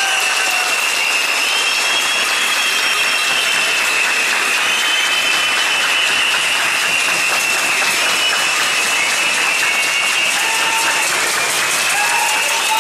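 A crowd applauding steadily in a large hall, with a high, slightly wavering whistle held over the clapping for most of the time.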